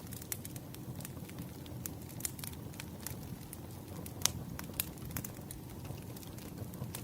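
Burning firewood crackling, with irregular sharp pops, the loudest about four seconds in, over a low steady rumble of the fire.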